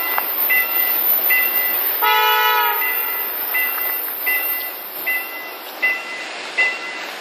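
A train's horn sounds one short blast of under a second, about two seconds in, over a steady hiss. A high electronic warning tone beeps about every three-quarters of a second throughout.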